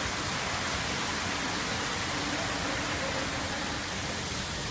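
Steady, loud hiss of noise covering the whole range from low to very high, cutting in suddenly at the start.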